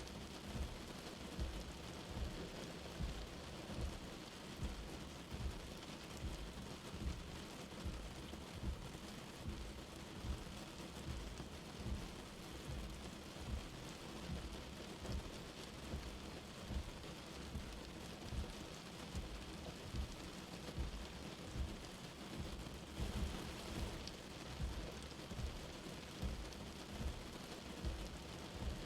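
Light rain falling with a steady hiss, under a soft low thump that repeats about once a second. The hiss brightens briefly a little after the middle.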